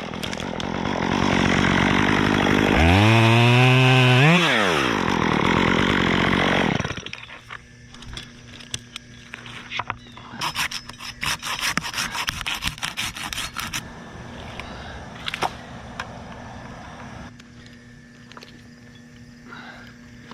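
Top-handle chainsaw revving and cutting through a pine limb, its pitch dipping and then rising and holding high, before it drops back to a steady idle about seven seconds in. While it idles, a burst of sharp rattling clicks comes a few seconds later.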